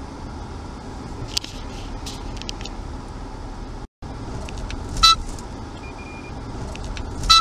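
Car engine and road noise heard from inside the cabin, a steady low hum, with two short, loud, sharp sounds with a brief ringing tone near the end, about two seconds apart. The sound cuts out for a moment about halfway through.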